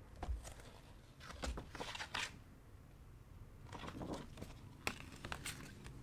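A printed paper cross-stitch chart being handled and moved: paper rustling and crinkling in two spells, each with a few sharp crackles.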